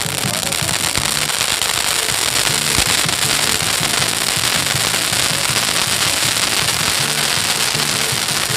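Bonfire crackling densely and continuously, a steady stream of small pops and snaps, with music playing underneath.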